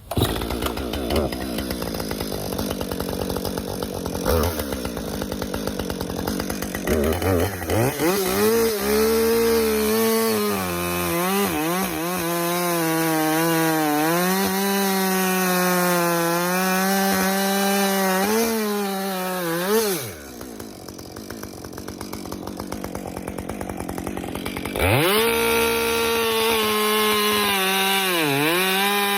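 Stock Husqvarna 550 XP Mark II two-stroke chainsaw with an 18-inch bar and X-Cut chain, cutting through oak at high revs, its pitch dipping and recovering as the chain loads up in the wood. About two-thirds of the way through it drops back quieter, then revs up and cuts again near the end.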